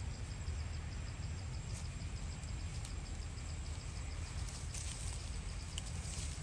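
Outdoor forest ambience: insects chirping in a fast, even pulse over a thin, steady high whine, with a steady low rumble underneath and a few faint clicks.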